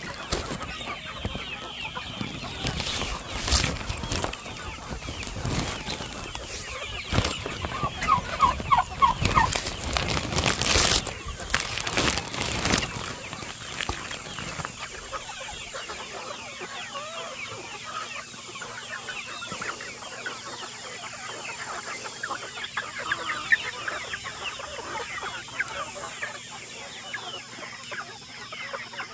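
Large flock of chickens clucking and calling over one another. During the first half there is also knocking and rubbing from the camera being handled.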